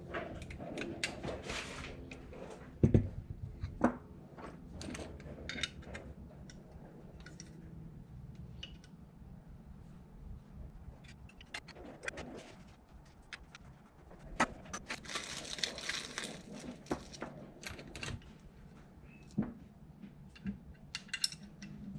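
Small metal throttle-body parts and hand tools clicking and clinking on a workbench as they are handled and fitted, with a louder knock about three seconds in. A low steady hum runs under the first several seconds and then fades.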